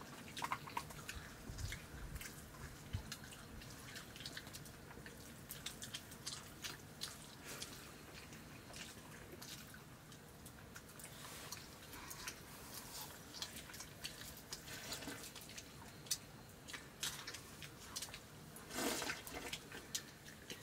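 Quiet eating sounds: fingers tapping and scraping rice on steel plates, with small clicks and chewing. Near the end a louder, half-second slurp as a plate is tipped up to drink from it.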